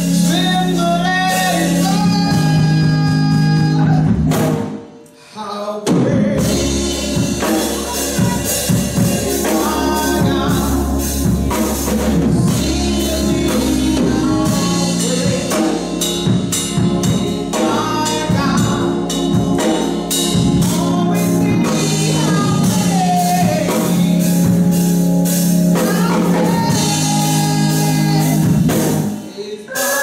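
Women singing a gospel song into microphones over instrumental accompaniment with drums. The music drops out briefly about five seconds in and dips again near the end.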